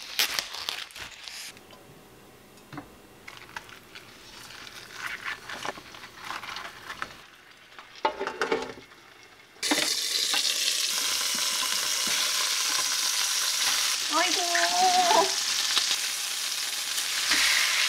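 Quiet clicks and rustles of handling for the first half, then, about ten seconds in, a steady sizzle starts abruptly: flounder frying in oil in a frying pan.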